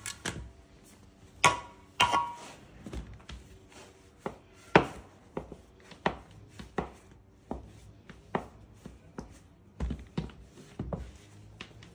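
Knife cutting bread dough into portions on a floured wooden board: a series of irregular sharp knocks of the blade against the board, the loudest about five seconds in.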